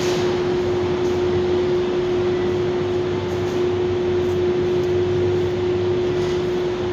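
Steady ambience of a supermarket parking garage: an even rushing noise with a constant mechanical hum at one pitch, unchanging throughout.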